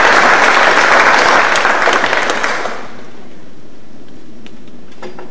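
Audience applauding, dying away a little under three seconds in and leaving quiet room sound with a few faint knocks.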